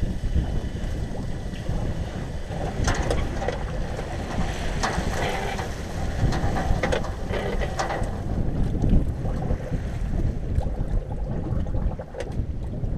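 Wind buffeting the microphone over lake water against a small open boat, with intermittent clatters and splashes from a wet gill net being drawn over a net hauler into a tub, busiest in the middle.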